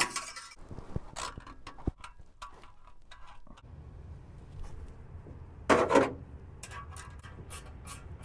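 Hand tool, likely a ratchet, working the bolt of a band clamp on a stainless exhaust pipe under a car: scattered metallic clicks and scrapes, a louder scrape about six seconds in, and a quick run of clicks near the end. A low steady hum comes in about halfway through.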